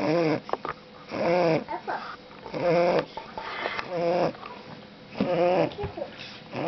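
Chinese Shar-Pei puppy snoring in its sleep: a pitched snore on each breath, about five in all, one roughly every 1.3 seconds, each rising and falling in pitch, with soft snuffles between.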